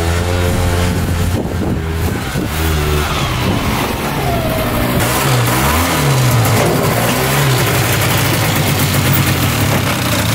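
Polaris Big Boss 6x6 ATV's two-stroke engine running under way, its pitch rising and falling with the throttle around the middle.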